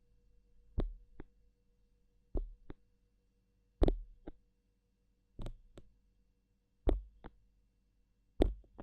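Pairs of short soft knocks, each a low thump with a click on top, the two a third of a second apart, repeating about every second and a half like a slow heartbeat: six pairs in all.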